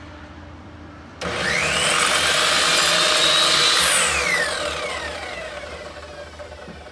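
Compound miter saw switched on with a sudden loud start, its motor whine rising as the blade spins up and cuts through a wooden trim board, then falling away as the trigger is released and the blade winds down.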